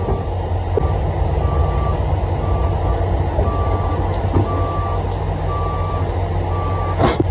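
Cat mini excavator's diesel engine running with its travel alarm beeping about once a second as the machine tracks, and a single knock near the end.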